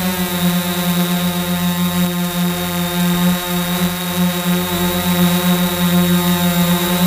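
Quadcopter drone's electric motors and propellers running in a steady hover, a loud even hum with a thin high whine above it, heard through the drone's own onboard camera microphone.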